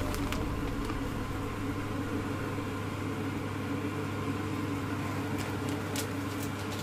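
Steady low mechanical hum with a faint even hiss, like a kitchen fan or appliance running, and a few faint clicks in the second half.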